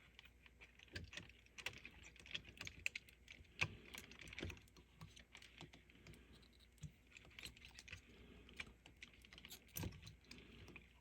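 Faint, irregular clicks and scrapes of small hand tools working a wire loose at a solder terminal inside a metal power-supply chassis.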